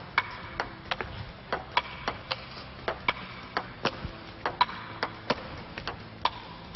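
Table tennis rally: a celluloid ping pong ball clicking off the paddles and bouncing on the table, about two to three sharp, ringing clicks a second at an uneven pace.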